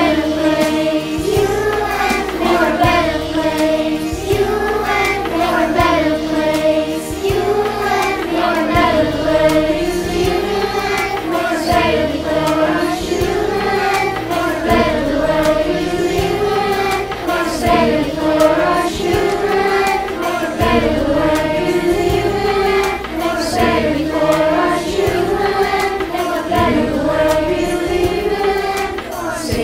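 A virtual children's choir, many home recordings mixed into one, singing a slow melody in long rising and falling phrases over backing music with a steady low beat.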